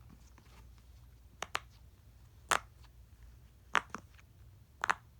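Silicone pop-it fidget toy bubbles being pressed and popping: about six short, sharp pops at irregular intervals, a few in quick pairs.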